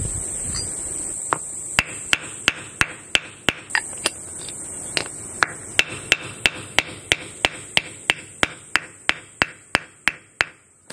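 Hammer blows on a wooden block driving a Speedy Sleeve onto a differential pinion flange through its installation tool: a run of sharp knocks, about three a second, starting about a second in and stopping just before the end.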